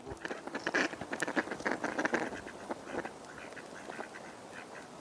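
A flock of ducks quacking: many short overlapping calls, busiest in the first couple of seconds and thinning out after.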